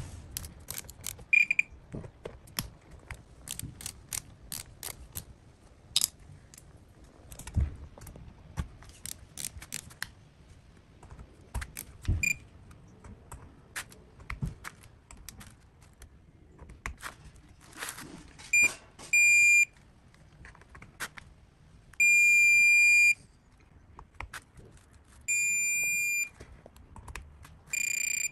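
Digital torque wrench ratcheting with clicks and small knocks as screws are run down. Then a series of high electronic beeps, some short and some about a second long: the wrench's alert that the set 40 inch-pound torque has been reached.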